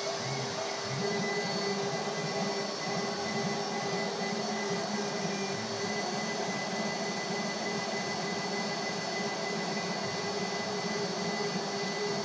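CNC router running a job: a vacuum cleaner used as the dust extractor drones steadily with a thin high whine, while the axis stepper motors hum underneath, their pitch shifting as the machine moves.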